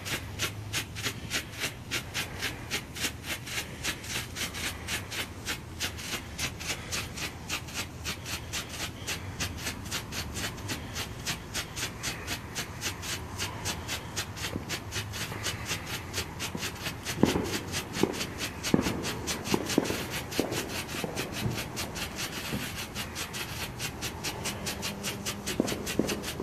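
Large professional-grade strobe firework burning, popping in a steady rapid rhythm of about three pops a second. A few louder thumps come in a cluster about two-thirds of the way through and again near the end.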